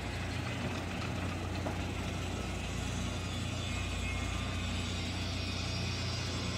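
Steady low drone of heavy machinery running, with a constant low hum and no sudden events.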